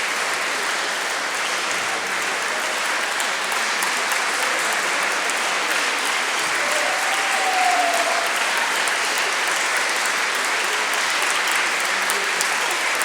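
Large audience applauding steadily, with dense clapping that keeps an even level throughout.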